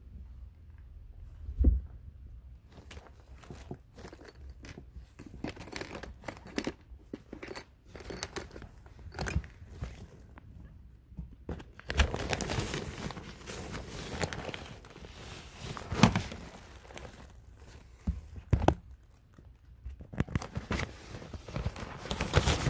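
Crinkly nylon fabric of a collapsible cat tunnel rustling and crackling as a cat moves about inside it, in irregular bursts with a busier stretch about halfway through, and a few soft thumps.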